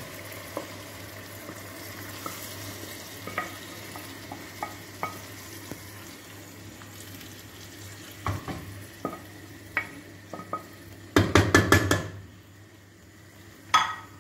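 Food sizzling in a stainless steel pot as chopped tomatoes are stirred into browned meat, paste and green beans, the spoon scraping and clicking against the pot. About two thirds through, a quick run of loud knocks of the spoon against the pot lasts about a second, after which the sizzle is quieter.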